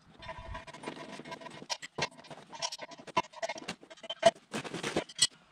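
Steel parts clinking and knocking: a pin, nut and wrench handled against the steel frame of a three-point hitch during assembly, a run of sharp knocks over a faint steady tone.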